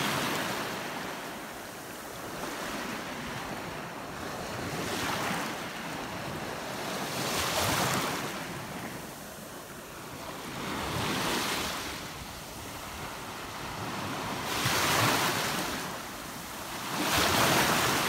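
Small Black Sea waves washing in on a sandy, pebbly shore, each wash swelling and fading every few seconds.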